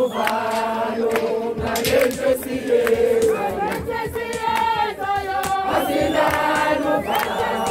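A crowd of many voices singing together in chorus.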